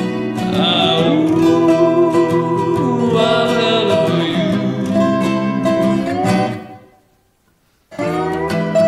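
An Ozark spider-bridge resonator guitar and a Martin 000-15ME acoustic guitar playing together, with a man singing long, held, bending notes over them. Most of the way through, the music dies away into about a second of silence, then the guitars come back in suddenly.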